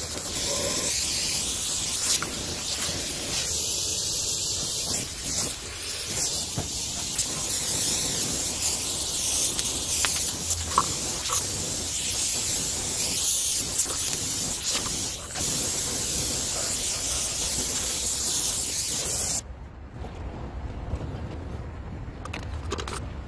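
Steady hissing of an oxy-fuel gas torch flame playing on a two-stroke brush cutter's muffler, burning off the clogged oil residue that made the engine smoke heavily. A few faint crackles are mixed in. About three-quarters of the way through, the hiss drops sharply to a quieter rush.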